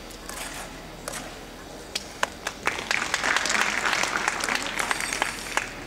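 Audience applause: a few scattered claps at first, then clapping swells into steady applause about three seconds in.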